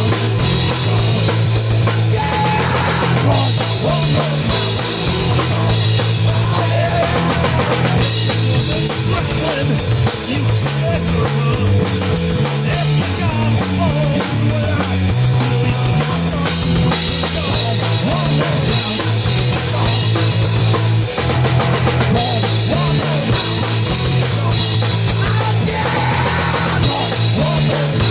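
Live rock band playing loud and steady, with a driving drum kit and a moving bass line to the fore and guitar over them, apparently an instrumental stretch with no vocals.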